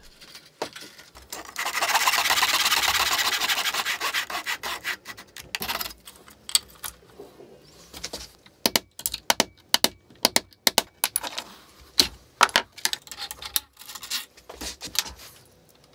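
A DIY CNC router frame is dragged over a wooden workbench, making a rasping scrape of about three seconds. This is followed by a long run of sharp, irregular clicks and knocks from metal parts and hand tools being handled during dismantling.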